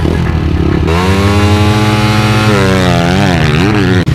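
Motocross bike's engine revved at the start gate. About a second in the revs climb and hold high, then the pitch dips and wavers near the end as the bike launches off the line.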